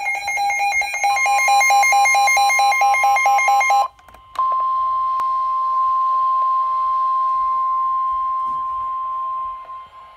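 Midland weather alert radio going off: rapid pulsing alarm beeps, about three a second, joined about a second in by the steady NOAA Weather Radio warning alarm tone. The beeping stops a little before halfway, and after a brief break with a click, the steady single-pitched tone continues alone. The tone signals that a warning broadcast is about to be read.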